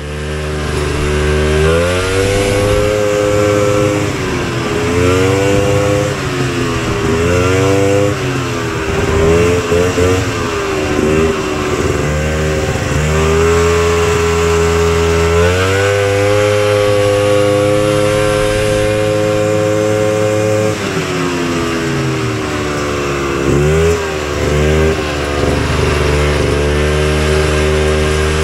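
Polaris Colt's 250cc single-cylinder two-stroke engine running hard, its pitch rising and falling again and again as the throttle is worked, with a stretch of several seconds held at a steady high pitch about halfway through.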